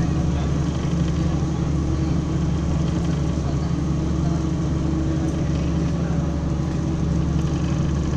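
Boat engine running at a steady cruise, a constant low drone over an even rush of water and wind noise.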